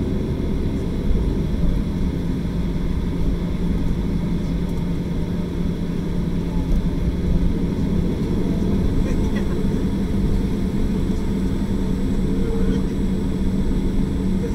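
Jet airliner taxiing, heard from inside the cabin: a steady engine hum over a low rumble.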